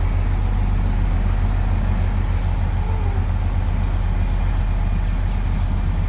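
Motor grader's diesel engine running steadily, its sound deep and even throughout.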